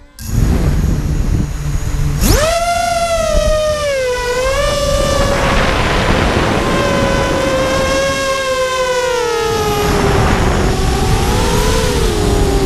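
Electric motors and propellers of a small FPV aircraft heard from its onboard camera. About two seconds in the motors spin up with a sharply rising whine, then the whine wavers up and down with throttle over steady wind rush.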